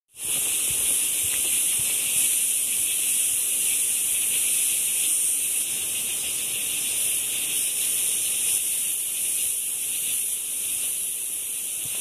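A chorus of cicadas droning steadily in a high, shrill, unbroken hiss.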